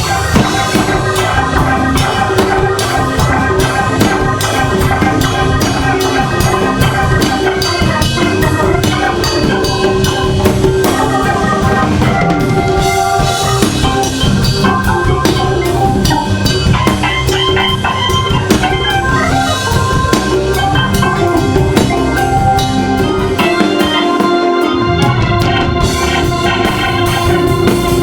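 Hammond organ playing a soul-jazz groove over a drum kit. Sustained chords and runs run throughout, and the bass drops out for a moment near the end.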